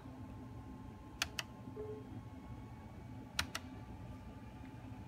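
Laptop touchpad buttons clicked: two pairs of sharp clicks about two seconds apart, over a faint steady hum.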